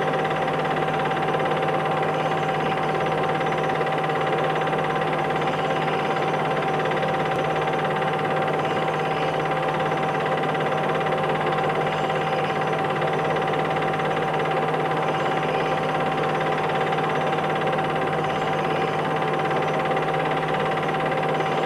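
Steady hiss with a constant low hum and a constant thin tone above it, unchanging throughout: noise on the soundtrack of an old silent home film rather than anything in the scene.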